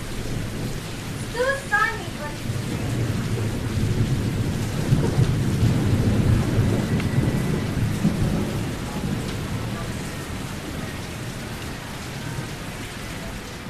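Steady rain with a long roll of thunder that builds a few seconds in, rumbles for several seconds and slowly fades.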